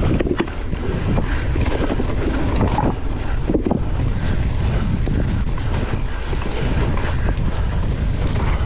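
Wind rushing over the microphone of a cyclist's camera at racing speed: a steady low rumble.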